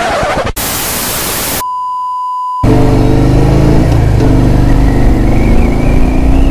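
Television static hiss, then a steady high beep like a test tone for about a second, cutting to a Harley-Davidson V-twin motorcycle engine running loud at road speed.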